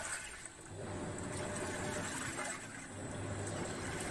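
Panasonic NA-F90A4 top-loading fully automatic washing machine running, with a water noise and a low motor hum that comes on and off in stretches of about a second.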